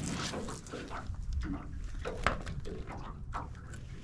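Wind buffeting the microphone in a low, steady rumble, with a few sharp knocks and rustles from handling in the boat.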